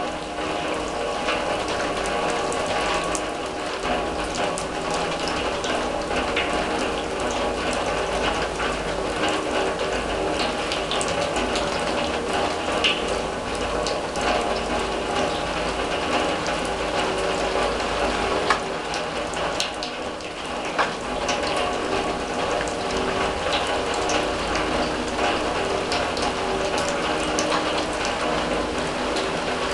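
Rain falling on a steel drum: a dense, steady patter of drop ticks, with two louder ticks a little past the middle.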